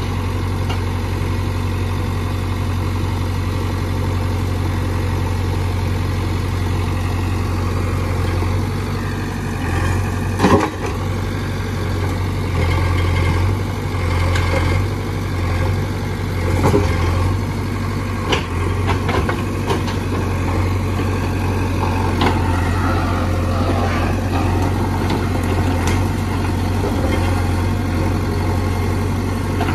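JCB backhoe loader's diesel engine running steadily under the hydraulic digging work, with a deep hum throughout. A few sharp knocks and scrapes of rock come as the backhoe bucket works the stony bank, the loudest about ten seconds in.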